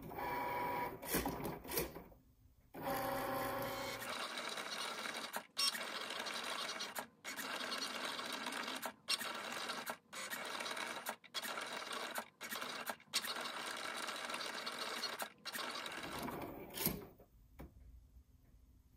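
Cricut Maker cutting machine running an engraving tip over a dampened leather coaster. At first its motors whine at a steady pitch as the head and mat move. Then comes a long, noisier stretch of running broken by several short pauses, which stops near the end.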